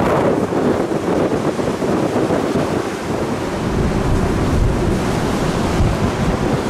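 Wind buffeting the microphone on a ferry's open deck: a loud, steady rushing rumble, with the wash of the sea below.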